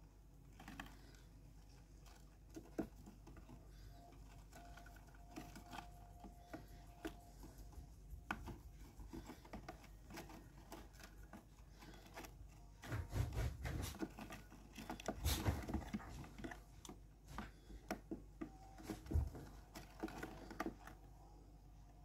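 Faint, irregular light clicks and scratches of budgerigar chicks and their mother shifting about on wood shavings in a wooden nest box, busier in the second half with a few dull knocks.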